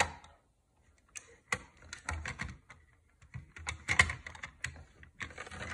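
Irregular light plastic clicks and clatter in small clusters, from a plastic toy (the pet train's parts and wheel) being handled and moved.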